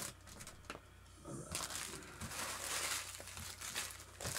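Foil trading-card pack wrapper crinkling as it is handled and crumpled while the cards are pulled out. The crinkling gets louder and denser from about a second and a half in.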